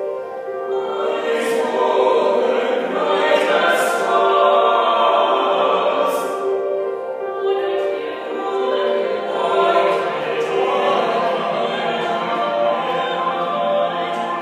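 Small mixed vocal ensemble of men's and women's voices singing classical choral music in harmony, with long held notes.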